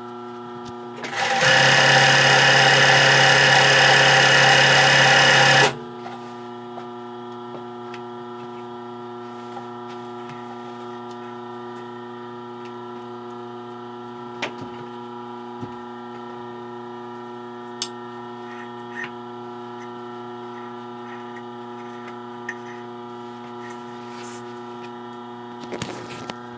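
Embroidery sewing machine stitching at speed for about four and a half seconds and then stopping abruptly. Its motor keeps humming steadily afterwards, with a few light clicks.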